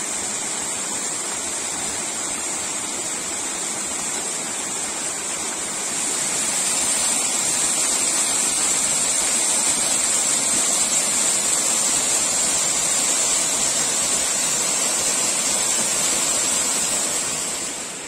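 Small mountain waterfall splashing down rock ledges into a pool, a steady rush of water running with a weak winter flow. It grows louder about six seconds in as the fall is approached.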